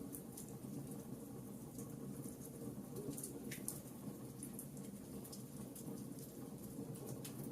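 Bonfire crackling: scattered sharp pops and snaps over a steady low rush of burning.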